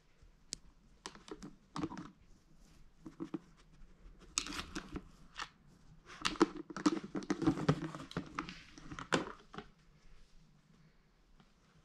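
A Yorkshire terrier working a clear plastic bucket's snap-on lid loose: a run of plastic clicks, knocks and scrapes, scattered at first, busiest and loudest in the middle, dying down near the end once the lid is off.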